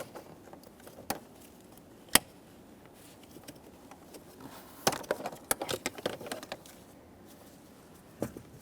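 Sparse plastic clicks and light rattles of a car's interior fuse panel cover being unclipped and handled: a sharp click about two seconds in and a cluster of small clatters around five to six seconds.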